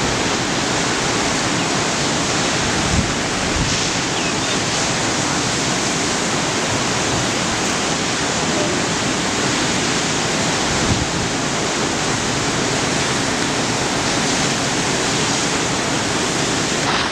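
Ocean waves breaking: a steady rush of surf and whitewater, with a few brief low thumps about three seconds in and again near eleven seconds.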